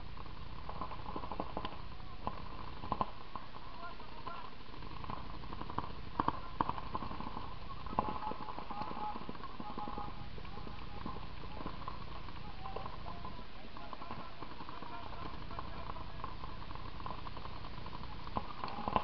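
Paintball markers firing in scattered pops and short rapid strings, the sharpest pops about three, six and eight seconds in, with players shouting across the field.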